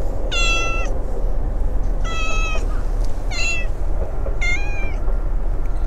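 A cat meowing four times, short high-pitched meows about a second apart, over a steady low rumble.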